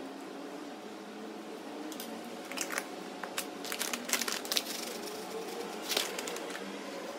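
Plastic pouch crinkling as it is handled and tipped to pour granola, heard as a run of irregular crackles from about two seconds in until near the end.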